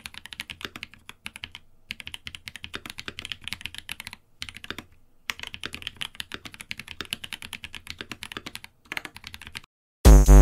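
Fast typing on a mechanical keyboard: a rapid, continuous run of key clicks with a few brief pauses. Right at the end a loud electronic music jingle cuts in.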